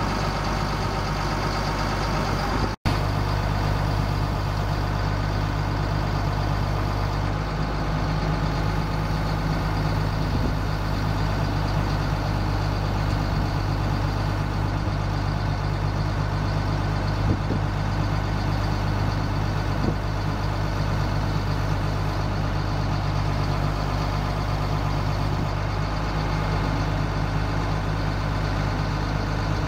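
Caterpillar 3126 six-cylinder turbo diesel of a GMC C7500 truck running steadily, driving the PTO hydraulic pump while the Hiab knuckle-boom crane is folded. The sound cuts out for a split second about three seconds in.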